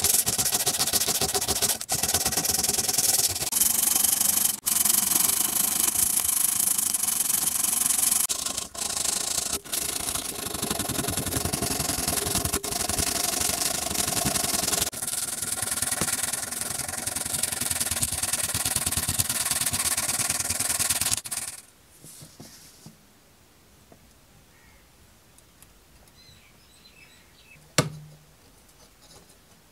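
Sandpaper rubbing hard against the bare metal body of a model ambulance in quick scraping strokes. The sanding stops abruptly about two-thirds of the way through. After that it is quiet apart from a single sharp click near the end.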